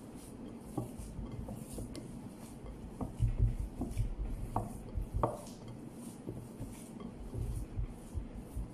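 Hands kneading a minced-meat kofta mixture in a glass bowl: irregular soft thuds with occasional light knocks against the glass, the loudest a little over three seconds in.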